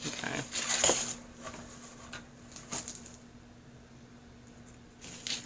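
Loose glitter sliding off a tilted sheet of paper and pattering onto a tumbler and the work surface, in a few short rustling rushes, the biggest about a second in.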